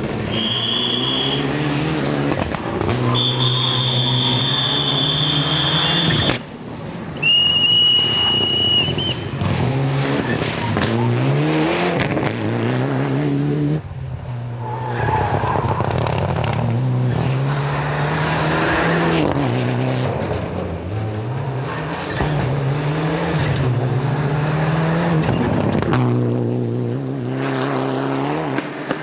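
Mitsubishi Lancer Evolution rally car's turbocharged four-cylinder engine at full throttle, its pitch climbing and dropping through repeated upshifts and downshifts over several passes. Tyres squeal in long steady tones three times in the first several seconds.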